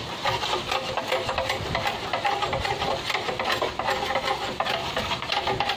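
Machete blade scraping along a green bamboo pole in quick, repeated strokes, cleaning off the branch stubs.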